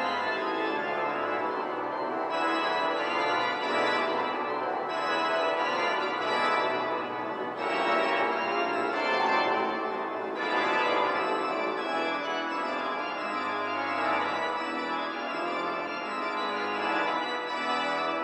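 Church organ playing a classical piece: several moving lines in the hands over held bass notes that change every second or two.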